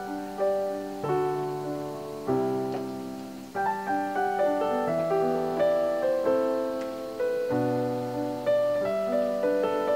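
Background piano music: a gentle melody over low chords, each note struck and left to fade, with the chord changing about once a second.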